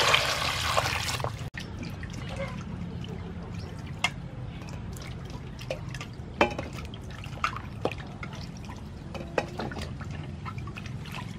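Water poured from a jug onto peeled carrots, potatoes and an onion in a steel bowl, a loud rush for about the first second. After it stops, scattered small splashes and drips as the vegetables are rubbed clean by hand in the water.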